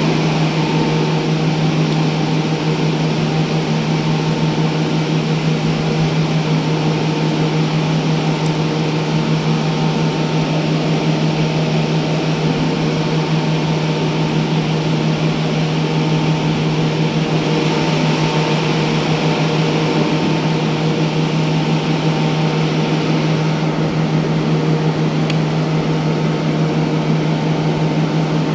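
A steady, loud machine drone with a strong low hum and several overtones, unchanging throughout, with a few faint clicks.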